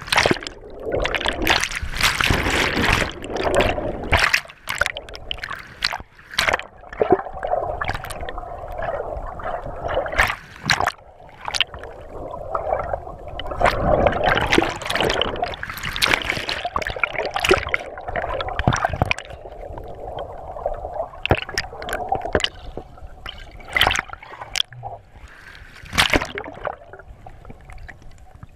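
River whitewater rushing and splashing around a kayak, with frequent sudden splashes and knocks.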